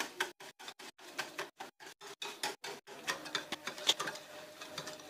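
Egg, sugar and ghee being beaten by hand in a bowl, the utensil knocking against the bowl in a quick, even rhythm of about four or five strokes a second.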